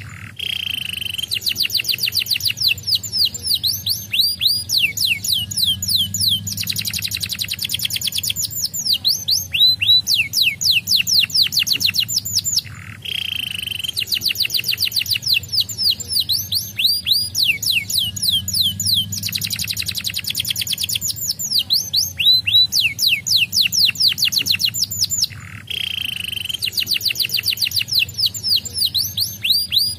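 Canary singing: rapid trills of quick falling whistled notes, many a second, broken by brief pauses. The same run of phrases comes round again about every twelve and a half seconds.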